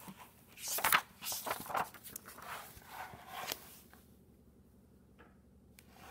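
Pages of a hardcover picture book being opened and turned: a loud paper swish about a second in, then several smaller rustles of handling, going quiet for the last couple of seconds.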